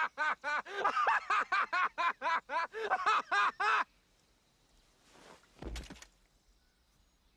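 A man's loud, rhythmic cackling laugh, about four 'ha's a second, cut off abruptly about four seconds in. About two seconds later comes a dull thud as he falls over backwards.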